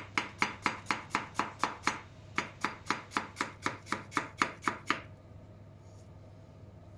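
Chef's knife quickly slicing green peppers into rings on a wooden cutting board: regular knife strikes about four a second, with a brief break about two seconds in. The chopping stops about five seconds in.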